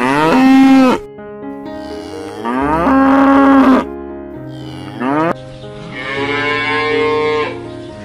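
Cow mooing four times: two long moos in the first four seconds, a short one at about five seconds, then a longer, higher-pitched moo near the end.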